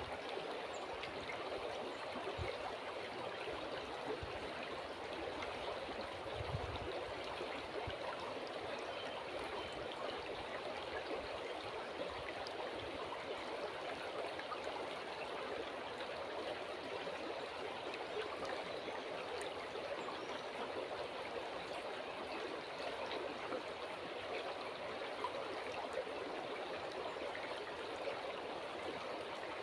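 River water flowing steadily, an even babbling rush that does not change. A few soft low thuds come in the first seven seconds.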